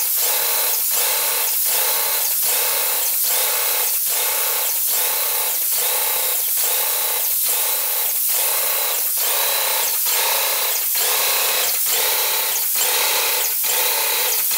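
Wagner Control Pro 250M airless paint sprayer running under load while spraying: a steady hiss at the tip, pulsing about twice a second with the pump's strokes.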